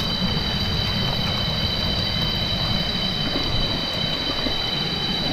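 Stream water rushing over rocks and small cascades: a steady, rumbling rush with no let-up. A constant high-pitched drone runs on top of it.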